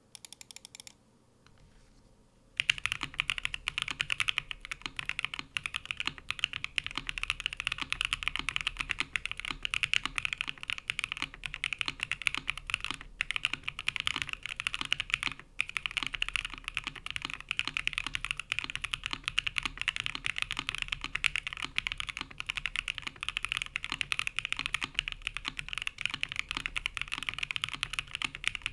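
Continuous fast typing on a TGR 910 ME mechanical keyboard with lubed Createkeebs Lotus switches, a polycarbonate plate and CRP keycaps. The dense run of keystrokes starts about two and a half seconds in.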